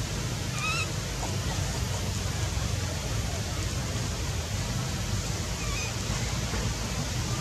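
Steady outdoor background noise with two short, high calls: one under a second in and a fainter one about six seconds in.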